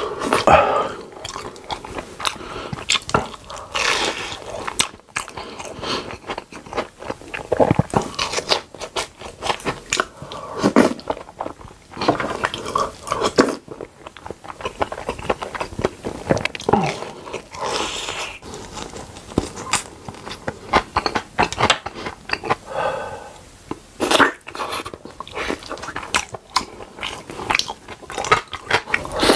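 Close-miked eating: chewing, biting and lip-smacking through mouthfuls of curry rice, a run of irregular wet clicks and smacks with an occasional crunch.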